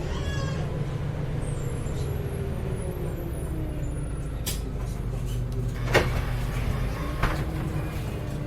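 Heuliez GX317 LPG city bus running, heard from on board: a steady low engine hum, a short hiss about four and a half seconds in, and two sharp knocks about six and seven seconds in.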